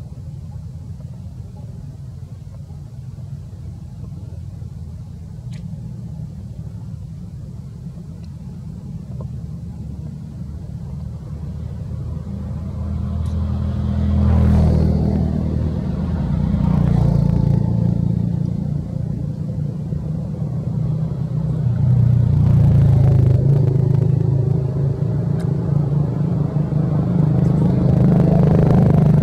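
Motor vehicles passing on a nearby road: a low engine rumble that swells and fades several times, louder in the second half.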